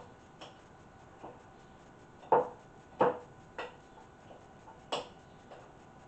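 Metal fork mashing and stirring butter with garlic and rosemary in a glass mixing bowl, the tines knocking against the glass in irregular taps, about seven in all, the loudest about two and three seconds in.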